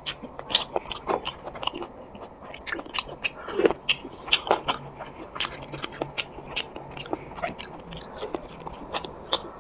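Close-miked mouth sounds of a person eating chicken curry with rice: irregular wet clicks, smacks and soft crunches of chewing and biting, several a second, with a louder cluster about halfway through.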